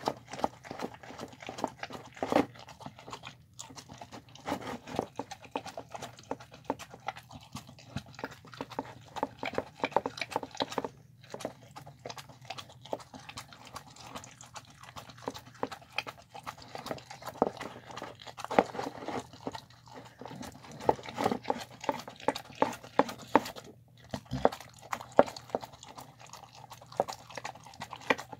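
A dog eating a wet meal of chicken, cabbage, spinach and rice from a bowl: rapid chewing and smacking with clicks of the muzzle against the bowl, broken by a few brief pauses.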